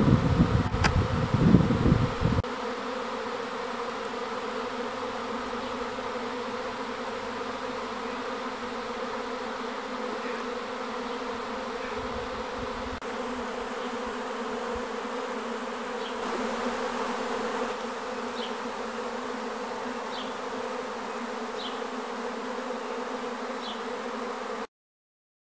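Swarm of wild honeybees buzzing, a steady hum from many bees flying around the cluster. A low rumble covers the first two seconds, and the sound stops suddenly near the end.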